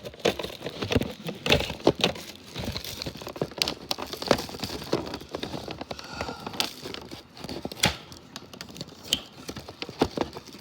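Plastic parts of a Playtex Diaper Genie Elite diaper pail being handled and taken apart: irregular clicks, knocks and crackling of plastic.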